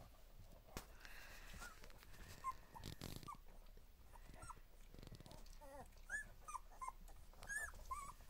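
Two-week-old border collie puppies whimpering in short, high squeaks that come thicker in the second half, over soft rustling and scraping as they scramble on the bedding.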